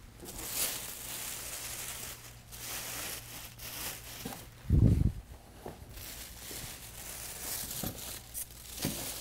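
Clear plastic wrap crinkling and rustling as it is pulled down off a large flat-screen TV, with one dull thump about halfway through.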